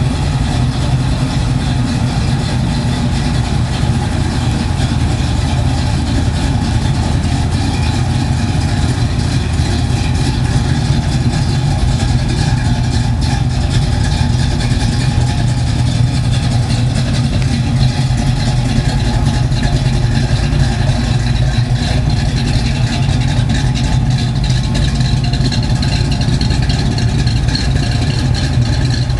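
Two 1969 Chevrolet Camaro Z28s idling together, their 302 cubic-inch small-block V8s running at a steady, even idle.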